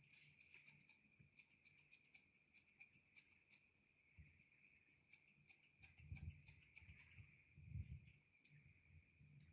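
Grooming scissors snipping at the hair on a toy poodle's face, a fast run of faint sharp snips, about six a second, that thins out after about seven seconds.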